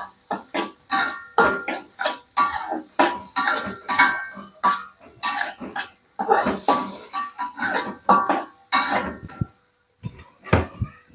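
Slotted metal spatula scraping and clanking against a metal wok while stir-frying mashed tofu, about two ringing strokes a second, stopping about a second and a half before the end.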